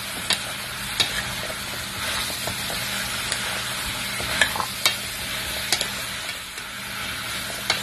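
Cubes of squash being stirred in a hot aluminium pot with sautéed onion, garlic and ginger: oil sizzling steadily, with a handful of sharp taps and scrapes of the spatula against the pan.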